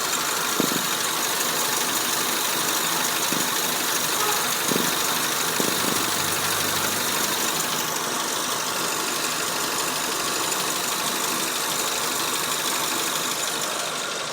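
2008 Honda Civic engine idling with a steady noise from its non-original accessory drive belt; the mechanic holds it to be the aftermarket belt slipping, not a worn pulley bearing, since water on the belt silences it. A few faint ticks sound through it.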